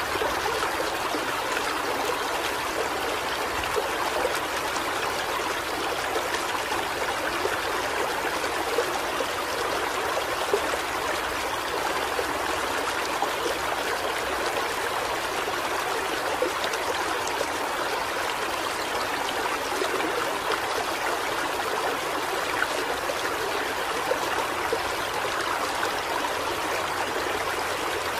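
Heavy rain pouring steadily, with scattered louder drops among the even rush.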